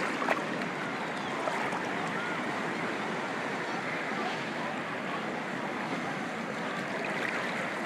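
Sea surf washing steadily in shallow water, an even rushing noise, with faint distant voices now and then.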